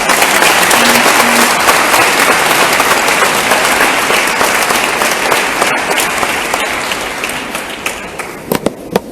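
Audience applauding, starting strongly and slowly dying away, with a few last separate claps near the end.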